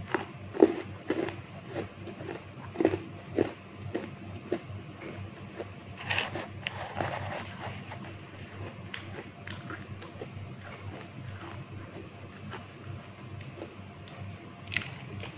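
A person chewing a spoonful of frozen shaved ice close to the microphone. A run of sharp crunches comes in the first four seconds, another cluster around six seconds in, then lighter scattered crunches.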